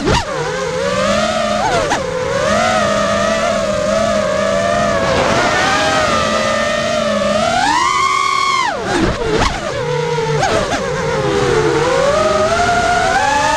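Brushless motors and three-blade 5-inch props of a QAV-R racing quadcopter whining, heard from the onboard camera. The pitch swings up and down with throttle, rising sharply in a punch-out about two-thirds of the way through, then dropping with brief dips.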